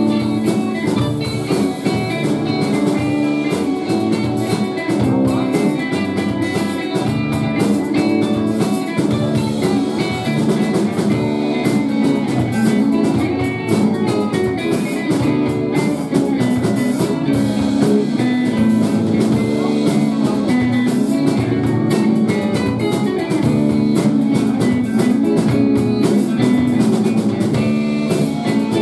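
A live band playing: electric guitar over a drum kit, with no singing.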